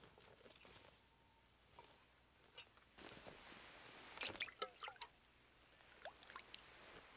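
A metal pot dipped into a lake and filled: water sloshing, trickling and dripping, in a cluster of short splashes about three to five seconds in.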